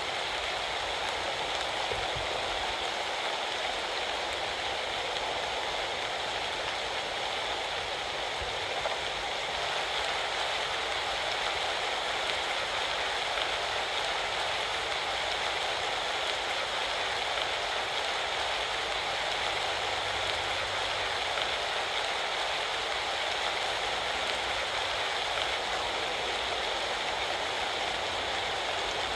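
Steady rain falling during an autumn rainstorm, an even hiss of drops with no breaks.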